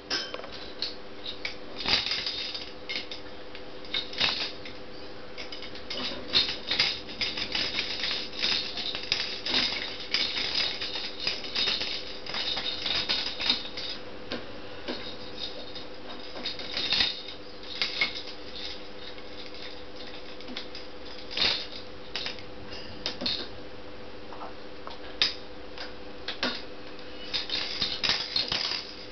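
Blue-fronted Amazon parrot playing, making irregular sharp clicks and clattering taps in uneven flurries, with a steady hum underneath.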